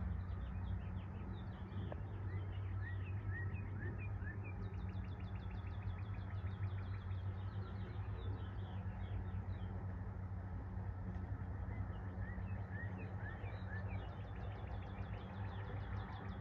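A songbird singing twice, several seconds apart, each song a run of short rising chirps followed by a fast trill, over a steady low rumble.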